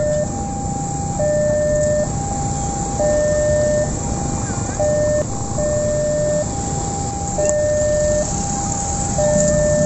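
Railway level-crossing warning alarm sounding a repeating high–low two-tone signal, each tone lasting a bit under a second. Steady traffic noise from motorcycles and cars at the crossing runs underneath.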